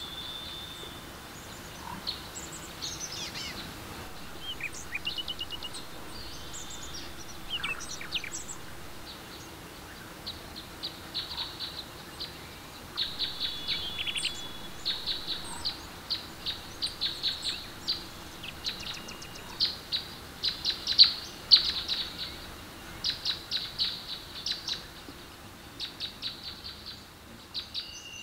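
Woodland birdsong: several birds chirping and trilling in short high calls, sparse at first and coming thick and fast from about halfway through.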